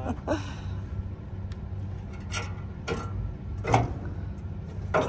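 A few sharp metallic clicks and clanks, the third the loudest, from hand-tool work on the rusty PTO shaft of an old fertilizer spreader, over a steady low engine idle.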